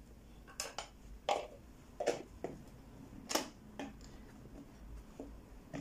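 A metal spoon tapping and clinking against a plastic tub and the rim of a pot as ground pepper is scooped out and knocked into the soup: an irregular series of sharp clicks and taps.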